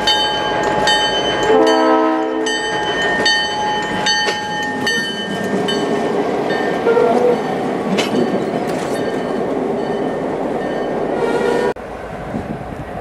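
New Hope Railroad diesel locomotive passing close by. There is a horn blast about two seconds in, and a bell rings about twice a second until about five seconds in. Then the engine and the wheels on the rails run steadily until the sound drops suddenly near the end.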